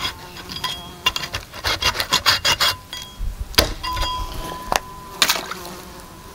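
A hatchet hacking through a pig's head on a wooden chopping block: a quick run of crunching, scraping strokes, then a couple of single sharp knocks and a last short flurry.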